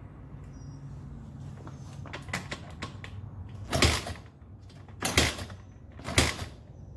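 Kick-starting a Honda XR80R's 80cc four-stroke single: three hard kicks on the kickstarter a second or so apart, each a short loud burst, and the engine does not catch.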